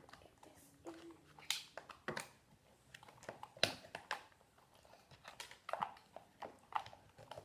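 Hard plastic LOL Surprise ball pieces being handled and clipped together, giving scattered sharp plastic clicks and taps.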